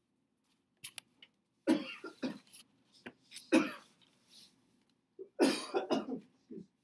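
A person coughing in three bouts: a quick run of coughs about two seconds in, a single cough halfway through, and a longer run near the end.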